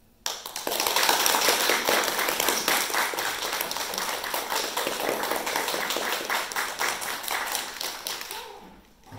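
Audience applauding, starting suddenly just after a moment of silence and dying away near the end.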